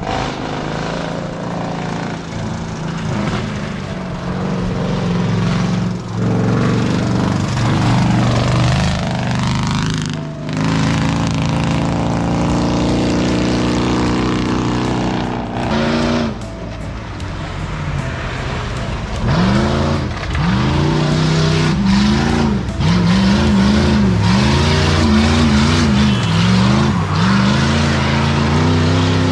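Engines of off-road 4x4 competition vehicles running under load on a muddy dirt track. They hold a fairly steady pitch at first, then rev up and down about once a second near the end.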